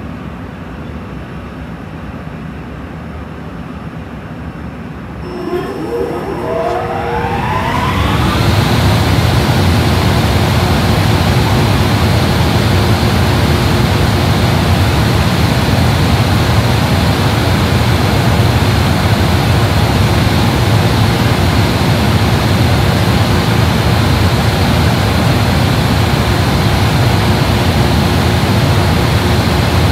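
A JR Freight EH500 'Kintaro' electric locomotive's cooling blowers start up. A low hum gives way about five seconds in to a rising whine as the blowers spin up. After about eight seconds it settles into a steady, loud rush of air with a faint held tone.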